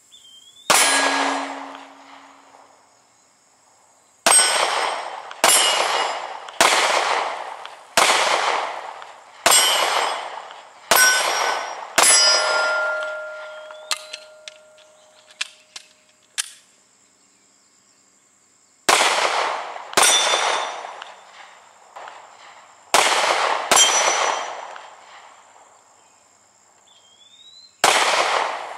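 9mm pistol firing steel-cased 115-grain rounds at steel targets: about thirteen shots, mostly a second or so apart, with a couple of short pauses. The steel plates ring after several of the hits.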